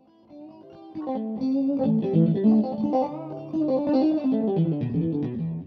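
Background music: a guitar playing a melody of single notes, fading in over the first second.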